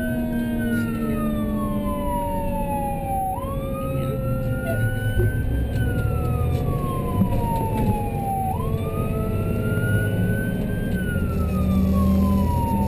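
Emergency vehicle siren in a wailing pattern: the pitch climbs, then slowly falls, repeating about every five seconds. The responding vehicle's engine and road noise rumble underneath.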